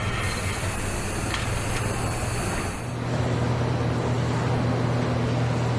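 Steady low machinery hum in a factory hall, with a hiss of air over it that drops away about three seconds in as the hum grows slightly louder.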